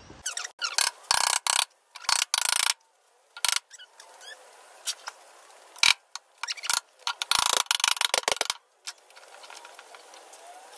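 Hammer blows on the steel inner panel of a Holden VK Commodore's engine bay, beating the metal into shape. The blows come in quick bunches, the first running to nearly three seconds in and another from about six and a half to eight and a half seconds, with single strikes between and fainter taps near the end.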